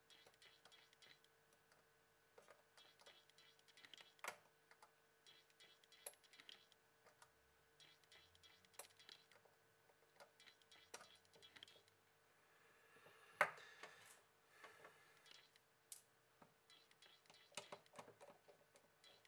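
Faint, irregular small clicks and scratches from fingers and fingernails working at the plastic frame, circuit board and sticker of a disassembled smartphone, with one louder click about thirteen seconds in.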